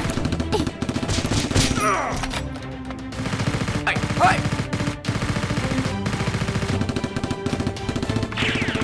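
Rapid automatic-gunfire sound effects dubbed over the Nerf blasters, running in dense bursts over steady background music.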